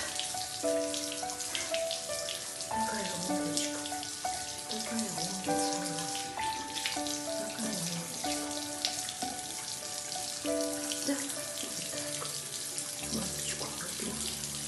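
Water running from a bathroom tap into the sink, a steady splashing hiss, under background music of held notes that change every second or so.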